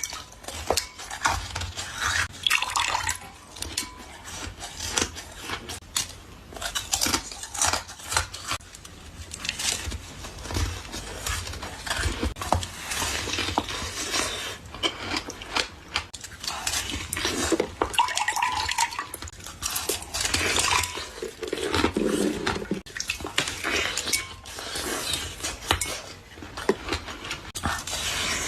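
Slushy ice being bitten and chewed out of a bottle: a dense, irregular run of crunches and crackles, with wet slushy sounds and ice pieces clinking.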